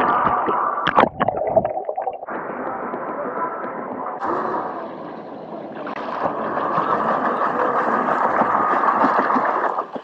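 Rushing water of a waterfall pouring into a pool, a dense steady roar, with a few sharp knocks or splashes about a second in.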